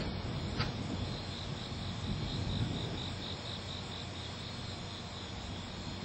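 An insect chirping in an even pulse, about three chirps a second, over a steady low background rumble.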